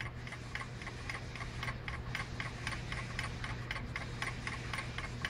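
Rapid, even ticking at about five clicks a second over a low steady hum, from a magnetic stirrer spinning its stir bar in a glass beaker during a titration.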